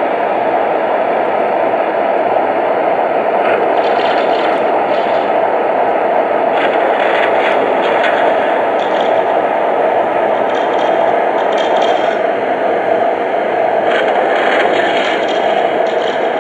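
Lionel Vision Line GG1 O-gauge model electric locomotive running, with a steady loud running noise from its sound system and drive. Short crackles come and go several times over it: the locomotive's pantograph arcing sound effect.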